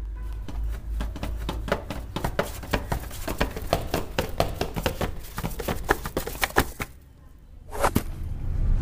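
Suspense sound design for a film's opening titles: a rapid, irregular run of sharp clicks over a low rumbling drone. It drops away about seven seconds in, then swells into a sharp hit near the end.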